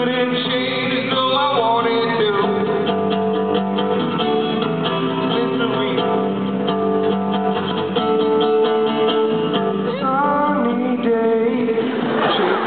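Guitar strumming with a man singing over it.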